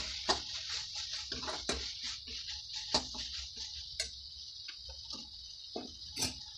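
Metal ladle clicking and scraping irregularly against a metal kadai as chopped tomatoes and onions are stirred, over a steady sizzling hiss of frying.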